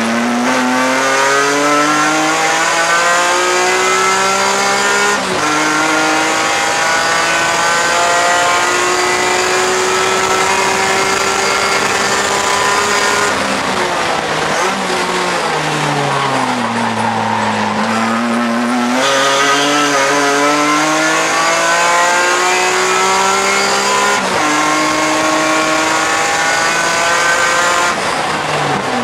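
BMW E46 M3 race car's straight-six engine heard from inside the cockpit at racing speed, climbing in pitch through the gears with a quick upshift every few seconds. About halfway through the pitch drops for a few seconds, then climbs again.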